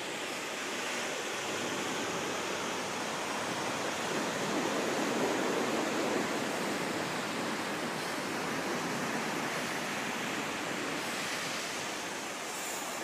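Ocean surf: a steady rushing wash that swells a little about five seconds in.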